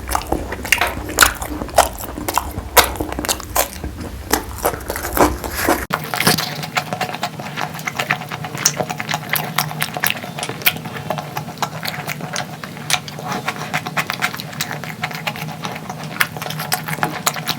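Close-miked chewing and biting of chicken curry: dense, irregular wet clicks and smacks throughout. A low background hum drops away abruptly about six seconds in.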